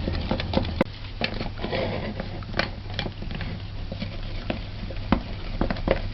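Wooden spoon stirring thick cake batter by hand in a mixing bowl, with irregular knocks and scrapes against the bowl.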